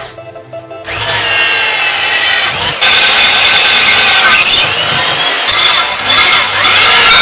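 A power tool cutting material: it starts about a second in, loud, its pitch sagging and recovering several times as it loads up in the cut.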